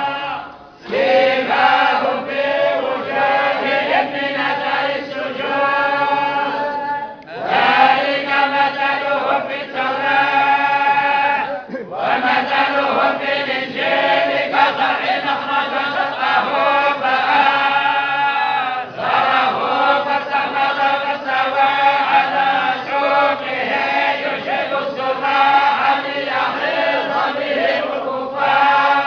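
A group of men chanting a Sufi devotional recitation together in unison, in long phrases broken by short pauses for breath.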